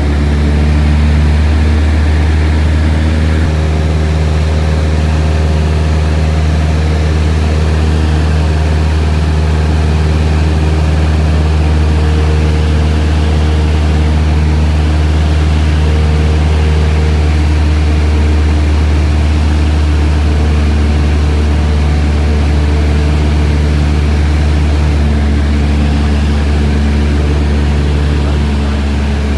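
Loud, steady drone of a light aircraft, heard from inside the cabin: a deep hum with several steady overtones above it.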